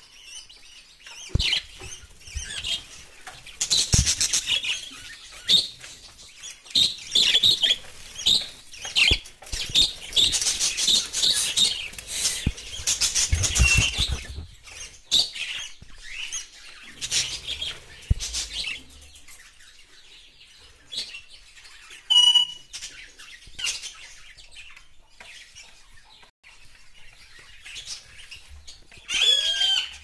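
Budgerigars chirping and chattering in quick high bursts, busiest in the first half and sparser later, with a single clear whistle about two-thirds of the way through. A few sharp knocks break in.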